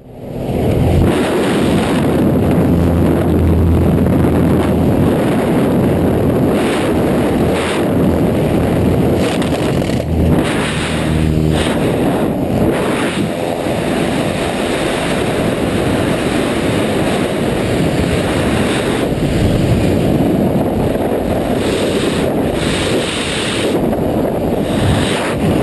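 Loud rushing wind buffeting the microphone over a low aircraft engine drone, starting abruptly and running steadily, with brief surges in the wind noise.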